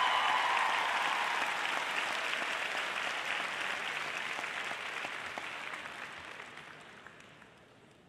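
Large arena crowd applauding, the clapping dying away steadily over several seconds.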